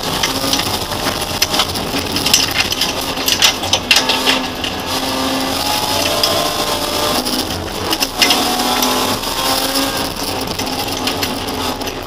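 BMW E30's M50B25 2.5-litre inline-six racing engine under hard acceleration, the revs rising and dropping with gear changes, heard from inside the stripped cabin. Gravel and stones clatter against the underbody in a run of sharp clicks.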